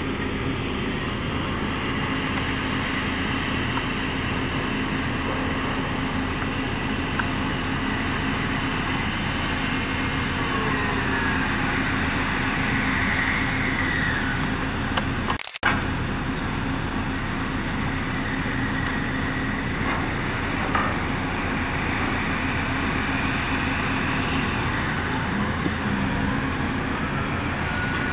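Patterson natural-gas drilling rig running: a loud, steady rumble of engines and machinery with a low hum, and a few faint whines that slide up and down over it. The sound cuts out for a moment about halfway through.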